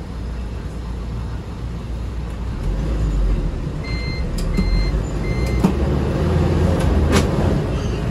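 Toyota Coaster minibus engine and road noise, growing louder a few seconds in. About halfway through come three short high electronic beeps, evenly spaced, and a couple of sharp clicks follow near the end.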